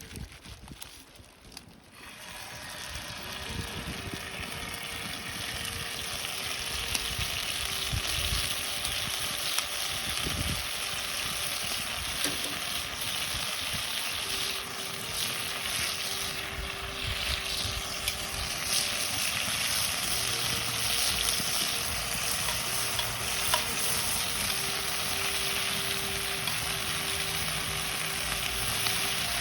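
Food sizzling as it fries in a hot pan. The sizzle starts about two seconds in and then runs on steadily.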